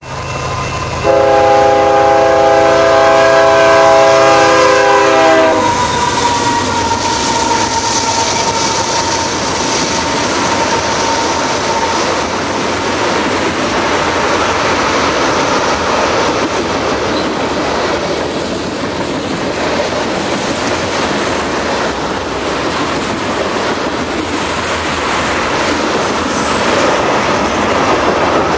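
Canadian Pacific freight train's lead GE ES44AC diesel locomotive sounding one long horn blast, several notes together, starting about a second in and lasting about four seconds. Then the locomotives pass and a long string of ethanol tank cars rolls by with steady wheel clatter.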